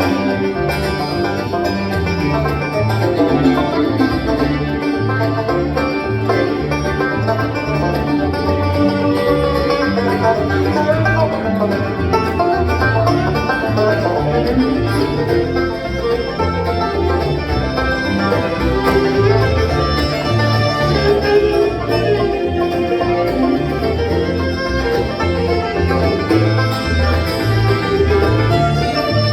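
Bluegrass band playing an instrumental break between verses, with the banjo leading over guitar, fiddle and a steady walking bass line.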